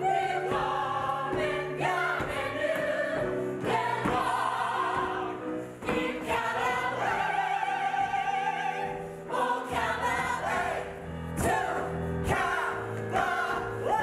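Musical-theatre cast singing an ensemble show number over instrumental accompaniment, with held notes and several voices together.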